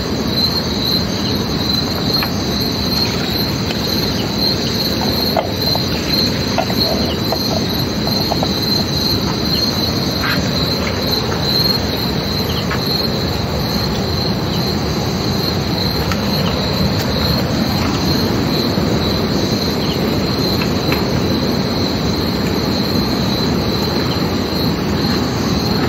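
Night insects chirring steadily in a high ringing band, over a constant low rushing noise.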